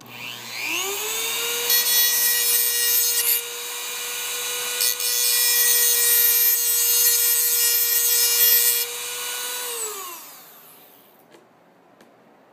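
Dremel rotary tool spinning up to a steady whine and grinding the end of a piece of HO code 83 model railroad rail, in two spells of grinding, a short one and then a longer one, to trim it to length. The motor winds down about ten seconds in.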